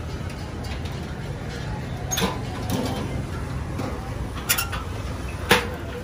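Sheet-metal charcoal stoves being handled: four short metallic clanks and knocks as lids and parts are lifted and set down, the loudest two near the end, over a low steady rumble of street traffic.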